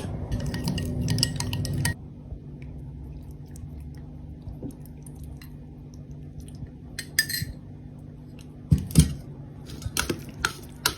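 Kitchen utensils clinking and scraping against a bowl while food is mixed, busiest in the first two seconds, then scattered light clicks, with a couple of louder knocks about nine seconds in and sharp clinks near the end.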